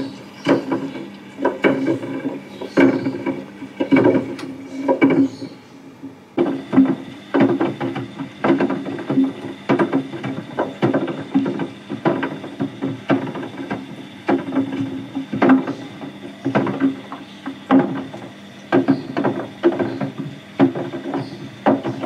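3D-printed plastic parts tumbling in a front-loading washing machine's wet drum, knocking irregularly a few times a second against the drum, over a steady hum from the machine. A faint high whine joins about six seconds in.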